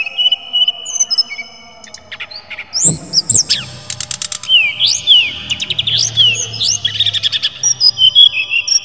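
Brown-chested jungle flycatcher (sikatan rimba dada coklat) singing: clear held whistles at first, then from about three seconds in a fast run of sharp rising and falling slurs and rapid rattling trills.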